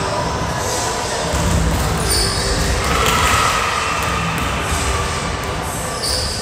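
Volleyballs being hit and bouncing on a hardwood gym floor, with voices around the gym.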